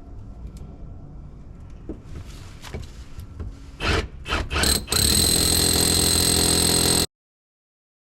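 Cordless power tool motor, pulsed in a few short bursts, then run steadily at a high whine and cut off abruptly.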